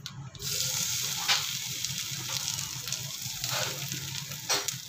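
Oiled banana-leaf parcels of fish sizzling as they are set into a hot frying pan one after another; the sizzle starts abruptly about half a second in and holds, with a few taps as parcels are laid down.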